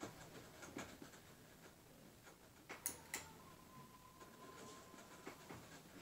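A quiet room with faint scattered ticks. About three seconds in come two sharp clicks in quick succession as the ceiling fan's light kit is switched on, followed by a faint steady high tone for about two seconds.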